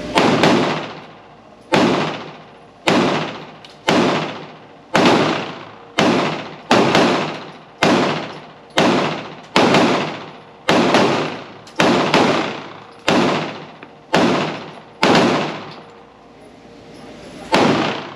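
PSA Dagger Compact 9mm pistol firing a magazine in slow, steady aimed fire: about sixteen shots, roughly one a second, each trailed by an echo, with a longer pause before the last shot.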